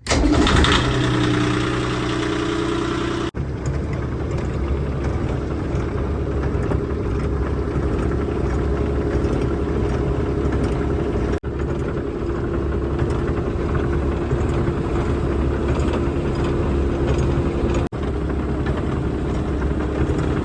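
Sailboat's auxiliary motor running steadily while motoring under power, broken by brief dropouts about three times.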